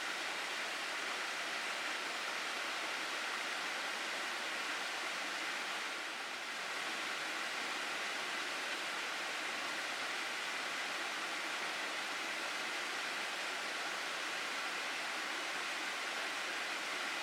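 Water rushing steadily in a gorge stream: a dense, even hiss with a brief slight dip about six seconds in.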